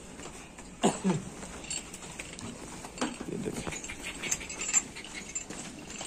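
Cattle feeding at a trough in a shed: a brief animal call falling in pitch about a second in, then faint scattered knocks and shuffling.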